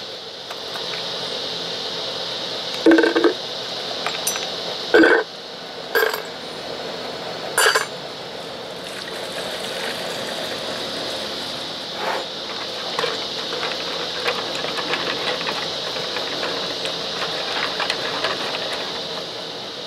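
Metal parts clinking against a glass jar, five sharp knocks in the first eight seconds and another near the middle, then green degreaser poured from a plastic jug into the jar, over a steady background hiss.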